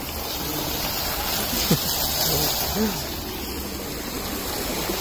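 Lit fountain's water jets splashing and falling into the basin: a steady rush of water.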